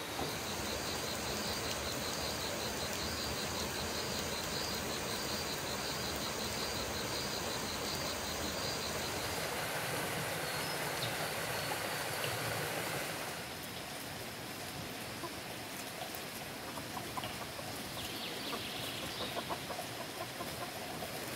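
Forest ambience: a steady hiss with a fast, rhythmic high chirping, typical of night insects, for the first nine seconds or so. After a drop in level about halfway through, a quieter outdoor background with a few faint chicken clucks near the end.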